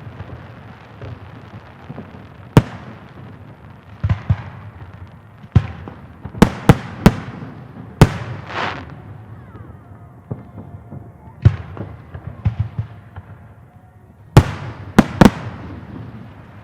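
Fireworks salute: aerial shells bursting with sharp bangs at irregular intervals, a few in quick succession, each echoing briefly over a steady crackling hiss.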